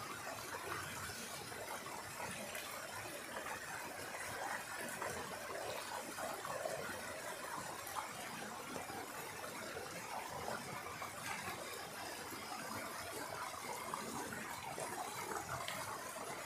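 Shallow mountain stream rushing steadily over rocks in a small cascade.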